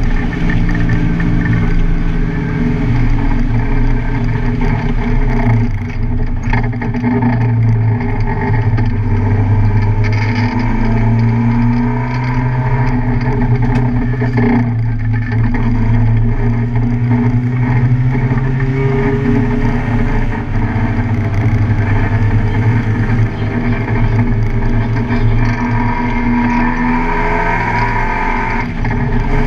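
Car engine running hard on a race track, its note rising and falling as the driver goes up and down through the gears.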